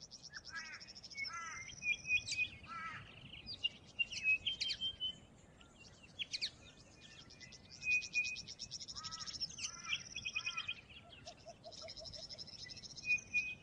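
Several small birds singing and calling: high, fast trills that return every few seconds, mixed with short chirps and brief whistles.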